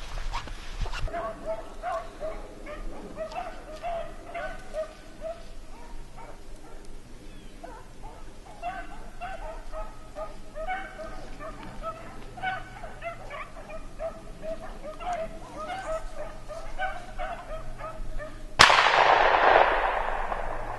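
A pack of hunting dogs yipping and baying in quick short cries, on and on, as they work a trail through the brush. Near the end a single loud gunshot cracks out, and its echo dies away over about two seconds.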